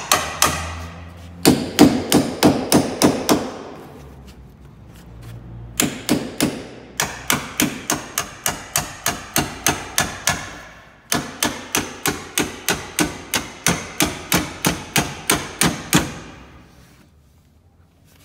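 Hammer striking a 3/8-inch socket extension held against the steel window channel at the top of a Ford Explorer door, bending the channel wider to fit thicker armored glass. Three runs of quick, sharp, ringing blows, about three a second, with short pauses between them, stopping about two seconds before the end.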